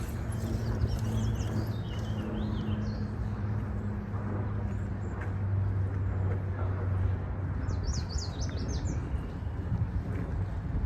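Outdoor ambience: a steady low hum that fades away about seven seconds in. A small bird gives quick high chirps, a few early on and a rapid series near the end.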